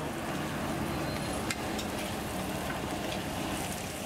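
Steaks sizzling and frying on a flat metal griddle, with metal tongs working the meat; a sharp metal click about a second and a half in, and a few fainter ones later.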